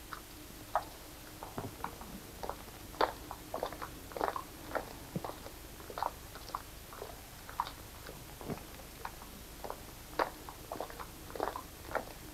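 Faint, irregular clicks and crackles, several a second, over a low steady hiss: the surface noise of an old film soundtrack between passages of narration.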